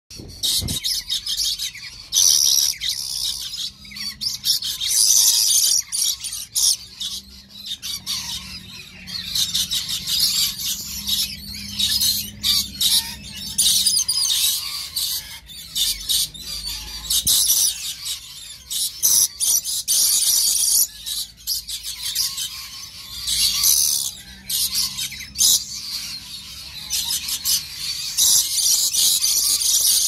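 Red lorikeets calling: rapid, high-pitched chirps and harsh squawks that come in stretches with short pauses.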